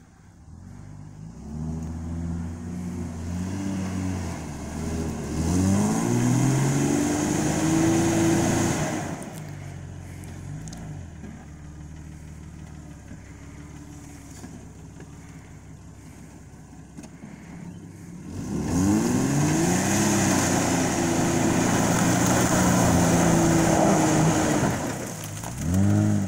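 Lifted Jeep Cherokee XJ's engine revving under load as it crawls through a wooded gully off-road. It comes in two long pushes of rising revs, with a quieter stretch of low revs between them and a short rev near the end.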